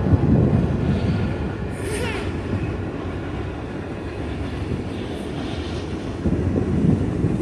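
BNSF freight train of covered hopper cars rolling across a railroad bridge: a steady low rumble, with a brief high squeal about two seconds in.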